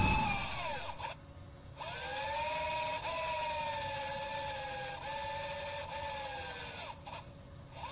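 Electric-motor whirring sound effect in an animated graphic. A run winds down with a falling whine in the first second. A second run spins up about two seconds in, holds a steady whine, and winds down near the seven-second mark.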